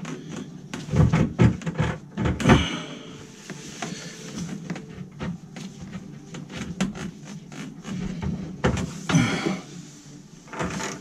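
Corrugated plastic dishwasher drain hose being handled and pushed onto its plastic fitting: rustling and creaking plastic with many small clicks and knocks, the loudest knocks about a second or two in and again near the end.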